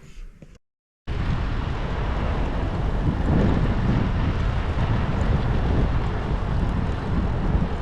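Wind buffeting the microphone, a loud steady rumbling noise that starts abruptly about a second in after a moment of silence.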